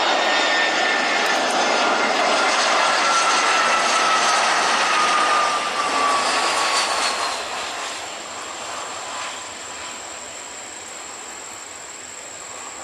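Jet airliner's engines passing close by: a loud rush with a high whine that falls steadily in pitch, fading away about eight seconds in.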